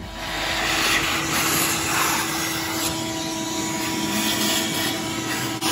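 Shop vacuum running steadily, sucking loose debris out of the open engine valley where the intake manifold sits. It cuts in abruptly and stops suddenly near the end.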